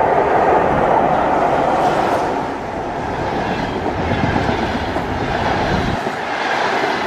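ChS7 electric locomotive and its passenger coaches passing close by at speed: a loud, steady rushing rumble of wheels on the rails. The deepest part of the rumble drops away about six seconds in.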